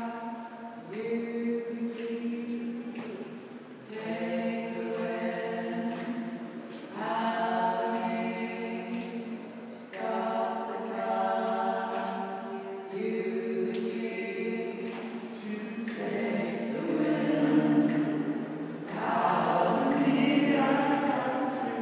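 Small mixed choir singing a cappella: overlapping held notes in several parts over a steady low drone, the chord shifting about every three seconds.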